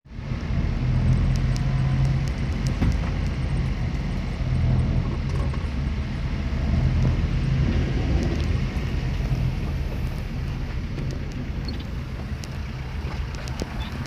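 Car engine running with road noise, heard from inside the car while it drives slowly in traffic with the windows open: a steady low hum under an even rush of noise.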